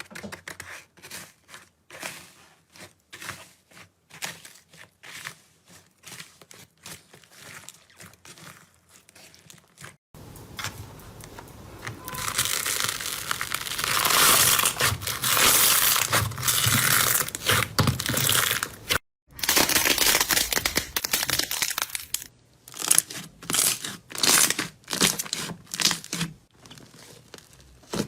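Slime being handled close to the microphone: soft separate clicks and pops at first, then, from about ten seconds in, loud dense crackling and crunching as crunchy slime is squeezed and pressed, breaking into separate squeezes near the end.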